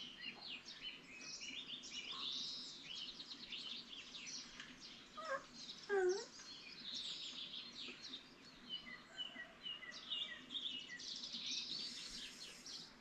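Several small songbirds chirping and singing at once, fairly faint, with many overlapping short notes and trills and a run of quick repeated notes in the second half. About six seconds in, a brief lower call slides downward.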